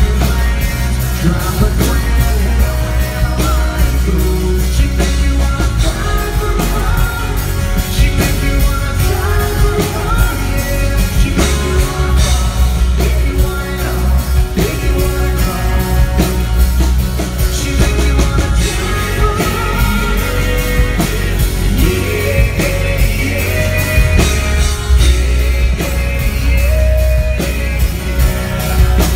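Live band performance: a male lead singer singing over electric guitar, drums and heavy booming bass, with a steady beat, heard from the audience in a concert hall.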